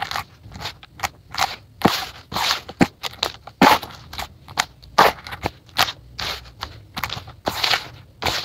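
Handfuls of dry, grainy dirt being crushed and crumbled between bare hands and poured back onto the pile, in repeated crunchy, gritty pours about twice a second.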